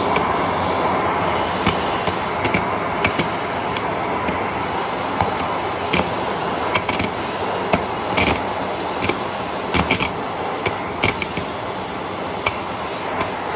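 Vacuum cleaner running steadily with its hose nozzle on a rug, sucking up small squares of paper and card that rattle up the hose as scattered sharp clicks.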